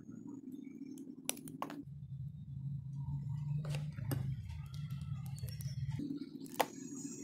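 Small craft scissors snipping the leftover metal stone chain, a handful of sharp clicks in pairs, over a steady low hum.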